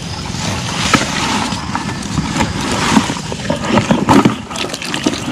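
A run of irregular knocks and clatter over a steady rushing noise, the knocks bunching more closely toward the end.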